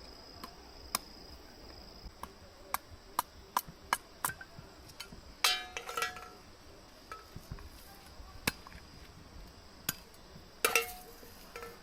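Irregular sharp knocks, a dozen or so, with two louder ringing metallic clinks, one about halfway through and one near the end, over a steady high insect trill.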